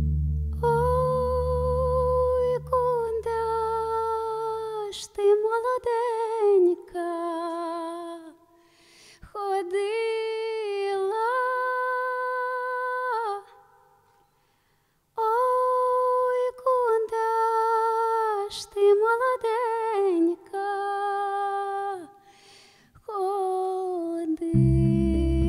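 A woman singing alone, unaccompanied, in held phrases with vibrato and a brief pause about halfway through. An electric bass guitar plays under her for the first few seconds, drops out, and comes back in just before the end.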